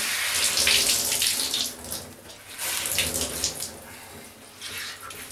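Water running out of a wet terry towel as it is wrung out by hand and splashing into a bowl of water below, in three spells: a long one at the start, another about three seconds in, and a short one near the end.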